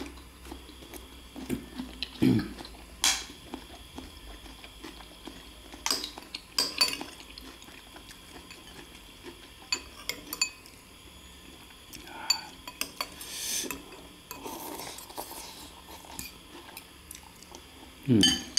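Metal spoons and forks clinking and scraping against ceramic bowls as two people eat, in scattered strikes a second or more apart, the loudest about two seconds in and near the end.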